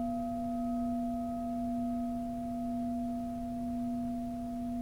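Heavy thick-walled bronze Japanese Buddhist bell ringing on long after being struck: a steady low hum with fainter higher tones above it, the loudness wavering slowly. The highest tone fades out about halfway through.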